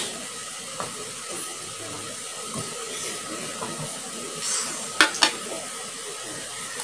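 A drinking glass set down on a glass tabletop, giving two sharp knocks about a quarter second apart about five seconds in, over a steady hiss.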